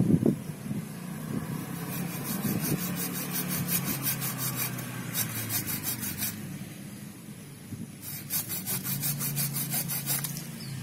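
Hand pruning saw cutting through the root of a dug-up guava tree, in two bouts of quick even strokes about four a second with a short pause between them.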